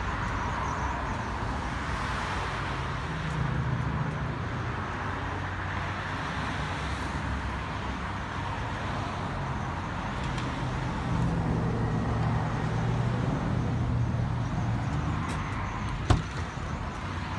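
Outdoor road traffic: cars going by with a steady rumble that swells twice as vehicles pass, and a single sharp click about sixteen seconds in.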